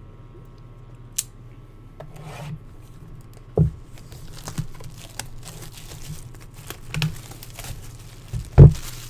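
A knife cutting open a sealed cardboard trading-card box: scraping and tearing of cardboard and wrapping, with a few knocks as the box is handled, the loudest near the end.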